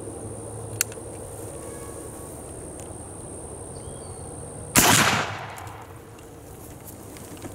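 A single shot from an M1842 rifle musket, a .69-calibre percussion muzzleloader firing a Minié ball over a black-powder charge, about five seconds in, its report echoing and dying away over about a second.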